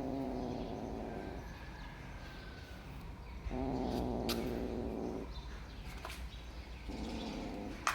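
A domestic cat giving long, low, drawn-out yowls, three in a row, the last one shorter. A sharp click comes right at the end.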